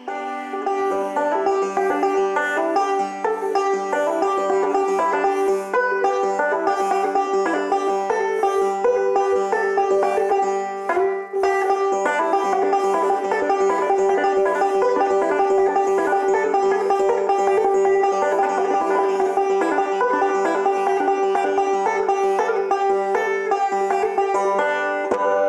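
Five-string resonator banjo picked rapidly in a fast rolling pattern, with a high note that keeps ringing through the run.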